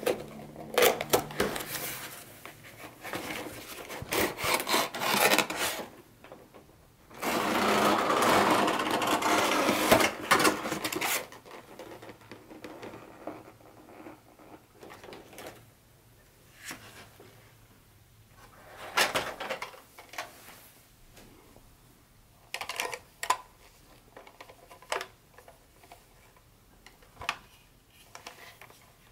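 Cardboard box and plastic packing tray being handled and unpacked: rustling, scraping and small knocks. About a quarter of the way in there is a steady rasping rush lasting about four seconds, likely the tray sliding out of the box. Afterwards there are scattered light clicks and taps as the plastic toy locomotive is handled.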